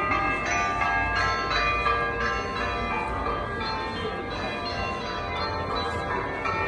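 Church bells ringing continuously, several bells struck in quick succession so their tones overlap, over a low background rumble.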